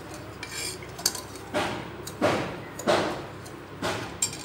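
A steel spoon stirring sugar into water in a stainless-steel saucepan. It scrapes and clinks against the pot in about six separate strokes, roughly one every half second. The sugar is being dissolved for syrup.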